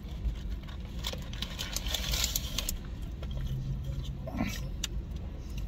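Light rustling, crinkling and clicking of things being handled, such as food wrappers, over the steady low rumble of a car cabin. There is a short low hum a little past the middle.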